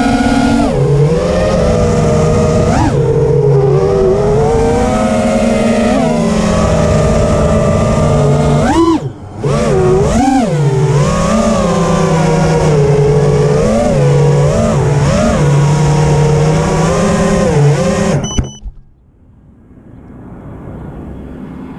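FPV quadcopter's brushless motors and propellers whining, the pitch rising and falling with the throttle, with a brief throttle chop about nine seconds in. About eighteen seconds in the motors stop abruptly as the drone comes to rest in the grass, leaving only a faint hiss.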